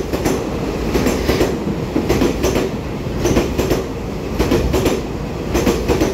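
Taiwan Railways EMU3000 electric express train passing at speed: a steady rumble and rush of the passing carriages, with clusters of wheel clicks over the rail joints about once a second.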